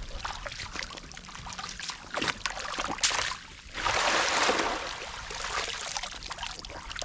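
Shallow running water trickling and splashing, with a louder rush of water about four seconds in.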